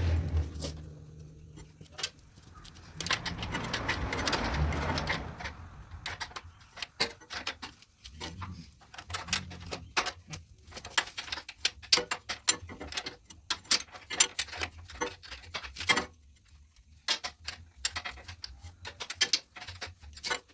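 Ratchet wrench clicking in quick, uneven runs while tightening the nuts that hold a tail light on. There is a burst of rustling handling noise about three to five seconds in.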